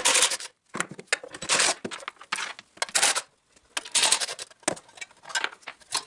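Cordless DeWalt driver backing out the bolts of a small engine's metal fan shroud in several short bursts, mixed with clinks and scrapes as the bolts and the shroud are handled and the shroud is pulled off.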